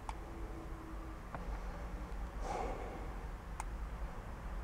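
Quiet vehicle cab: a steady low hum with a few faint clicks and a soft breath about two and a half seconds in.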